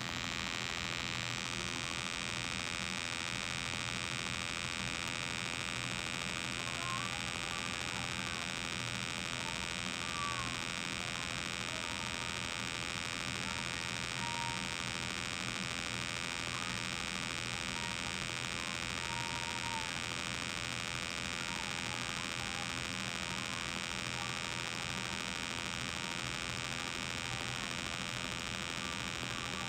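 Synthesized imitation of a Bell 206 JetRanger's rotor sound: two tone-generator tones played together through iPad speakers, a very low 13 Hz tone for the two-bladed main rotor and an 85 Hz tone for the tail rotor, giving a steady buzzing hum.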